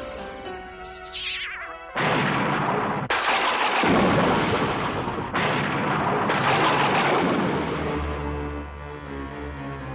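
Cartoon sound effects over music: falling-pitch whistles, then a sudden loud rushing, blast-like noise about two seconds in that breaks off and restarts a few times, and dies away near the end as held music notes take over.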